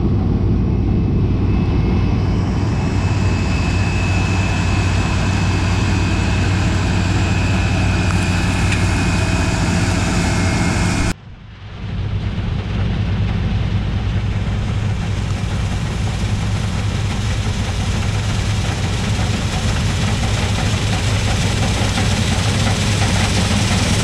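New Holland TX62 combine harvester running steadily as it cuts and threshes a crop of field beans, a constant engine hum over machinery noise. The sound drops out for a moment about eleven seconds in, then carries on.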